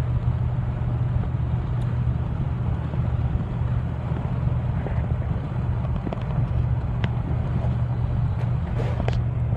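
Steady low drone of a car's engine and road noise, heard from inside the cabin, with a few faint soft clicks.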